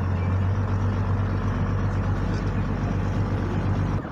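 Glass-bottom tour boat's engine running steadily, a low drone. The level drops abruptly near the end.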